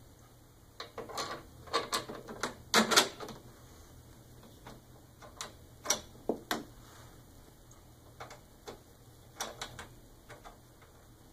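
Irregular clicks, knocks and rattles of plastic and metal parts being handled and fitted at the handle of a snow blower during hand assembly, coming in clusters with short pauses between.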